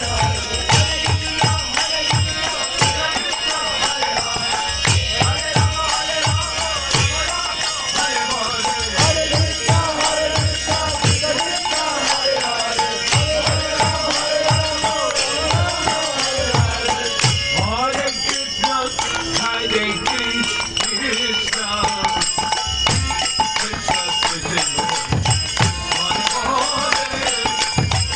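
Devotional kirtan music: voices chanting a mantra over a drum played in quick clusters of strokes, with steady metallic jingling and ringing from hand percussion.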